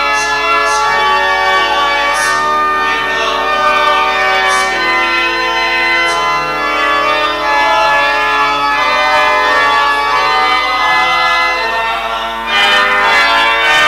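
Church organ playing sustained chords, with singing over it.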